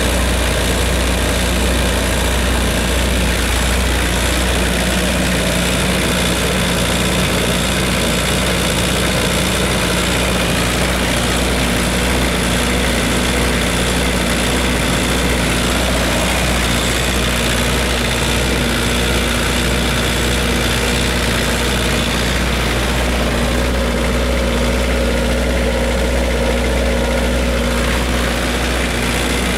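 Kubota V3300 four-cylinder diesel engine of a Kubota SQ3330 33 kW generator set running at a steady, unchanging speed, heard with the enclosure doors open.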